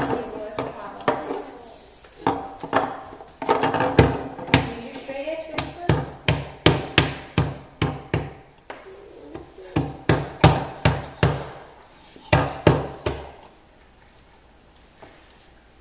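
A baby banging on a wooden tabletop: a long run of irregular knocks, at times several a second, that stops near the end.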